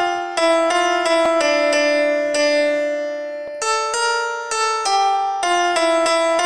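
Upright piano played solo: a slow melody of struck single notes over lower notes, about two or three notes a second, with one note held and left to fade for about two seconds midway.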